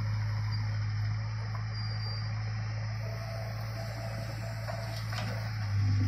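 Case 770EX backhoe loader's diesel engine running with a steady low hum as the backhoe arm lifts a bucket of soil, growing louder just before the end.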